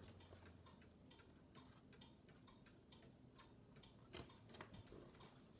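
Near silence: room tone with faint, regular ticking, a few ticks a second, and a few slightly louder clicks a little past the middle.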